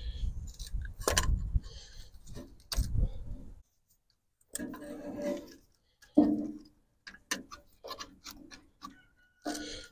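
Hands working at the ignition of a Farmall Cub engine while the distributor cap is taken off: clicks, rubs and scrapes of metal and plastic parts, with a low handling rumble in the first few seconds. A short hum-like sound comes about six seconds in, followed by a quick run of sharp clicks.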